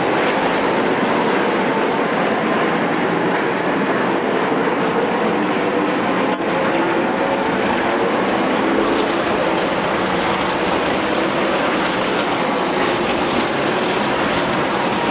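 A field of NASCAR Camping World Truck Series race trucks running on track, their V8 engines blending into one dense, steady drone of many engines at once. There is a momentary dip about six seconds in.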